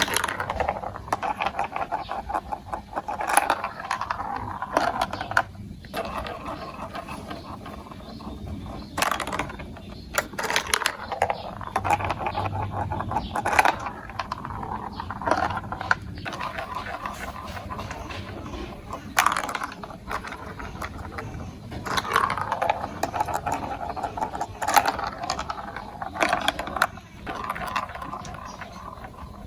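Marbles rolling and clattering through marble run building blocks: a continuous rattle broken by frequent sharp clicks, with a few brief pauses.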